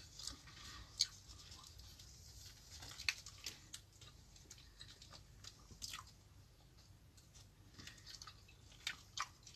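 Someone chewing a Subway sandwich: quiet wet mouth sounds and small clicks, with a few sharper clicks about a second in, three seconds in and six seconds in.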